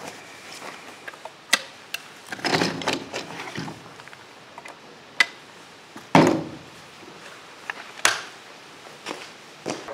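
A Stoeger Coach Gun, a side-by-side 12-gauge double-barrel shotgun, being loaded. Sharp metallic clicks and short scraping handling sounds come as shells are pushed into the open breech, then a louder clack a little past halfway as the action is closed.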